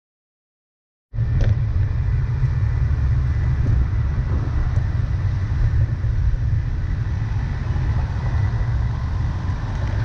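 Road traffic: cars passing with a steady low rumble, starting abruptly about a second in.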